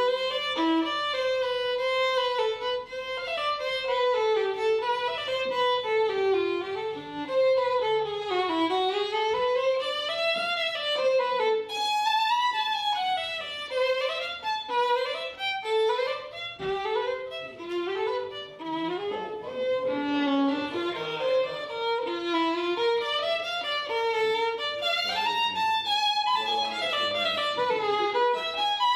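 A violin playing a continuous, flowing melody that climbs and falls in quick runs, with vibrato on the held notes.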